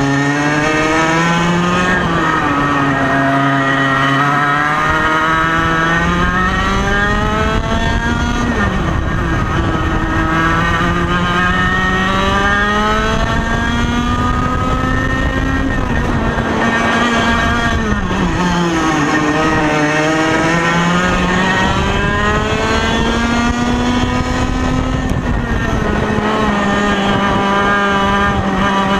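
A 1995 Ital Sistem SL21 100cc two-stroke kart engine running flat out on track, heard onboard. Its pitch climbs steadily along each straight and falls sharply each time it lifts for a corner, several times over.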